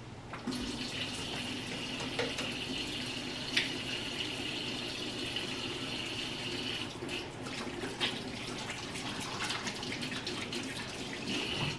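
Kitchen faucet running steadily into the sink as hands are washed under the stream, with a few light knocks about four and eight seconds in.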